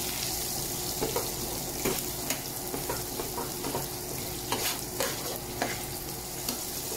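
Garlic and sliced red onion sizzling in hot oil in a frying pan, stirred with a metal spoon that scrapes and clicks against the pan at irregular moments. The onion is being sautéed in oil until it turns translucent.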